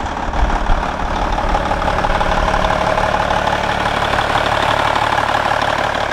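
Cummins N14 inline-six diesel of a 1998 Peterbilt 379 semi truck idling steadily, just restarted after months of sitting since a rollover wreck.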